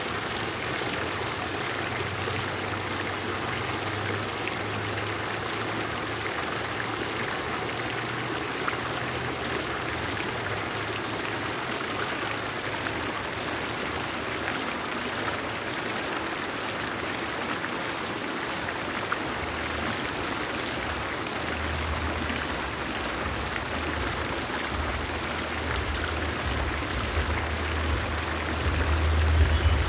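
Fountain jets splashing steadily into their basin, a constant even rush of falling water. A low rumble grows underneath in the last several seconds.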